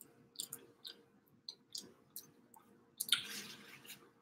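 Close-up mouth sounds of people eating cheese-stuffed garlic breadsticks: faint scattered chewing clicks and lip smacks, with a brief louder hiss about three seconds in.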